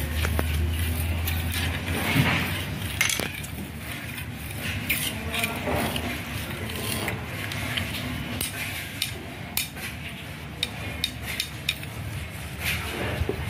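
Scattered light clicks and taps of hands and a thin wooden modelling tool handling clay on a plastic stool. A low hum runs under the first couple of seconds, then stops.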